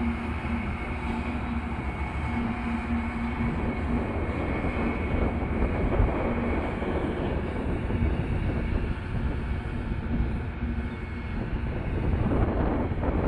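Caterpillar CS-533E vibratory soil compactor at work on crushed stone, its diesel engine running with a steady low rumble. A steady hum sits over it for the first few seconds, and the sound turns rougher and noisier from about four seconds in.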